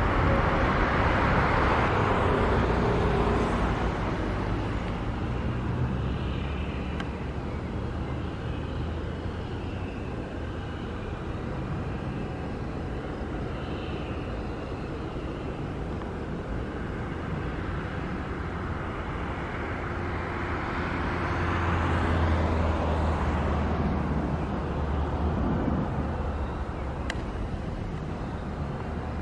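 Boeing 737 jet engines: one airliner passing with its engine whine falling in pitch and fading over the first few seconds, then a steady low rumble, and another approaching jet swelling louder about twenty seconds in.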